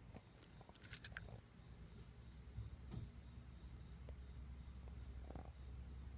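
Crickets chirping in a steady, unbroken high trill, with a sharp click about a second in.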